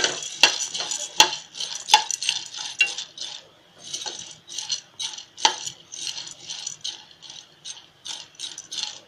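A metal spoon stirring dry roasted chana dal (Pandharpuri dal) in a nonstick kadhai with no oil, lightly roasting it on medium gas. The dal grains rustle and scrape across the pan, with sharp clicks where the spoon strikes the pan, several of them in the first two seconds.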